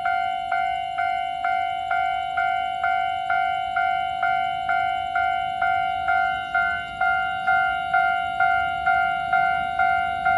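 A bell-like ringing tone struck over and over, a little over twice a second, each strike fading before the next.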